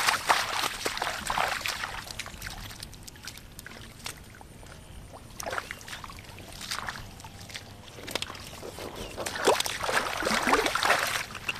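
Shallow muddy water splashing and sloshing as a person wades and digs through mud by hand. The splashing is busiest near the start and again toward the end, with quieter dribbling in between.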